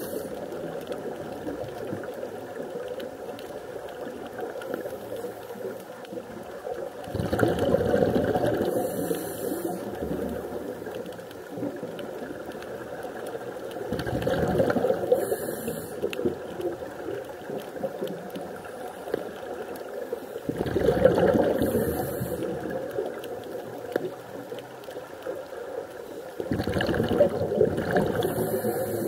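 Scuba diver breathing through a regulator underwater: a loud bubbling swell of exhaled air about every six and a half seconds, four times, each ending in a brief hiss, over a steady underwater wash.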